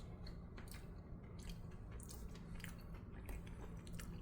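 Faint close-up chewing of a mouthful of microwaved chicken pasta bowl, with small wet mouth clicks scattered throughout; the food is soft and mushy.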